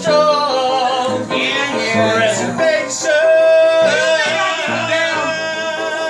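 A show tune playing: a voice singing over a backing track, holding one long note through the second half.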